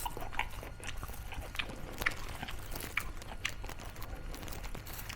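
A person chewing crisp food close to the microphone: a run of sharp, irregular crunches and smacking bites, several a second.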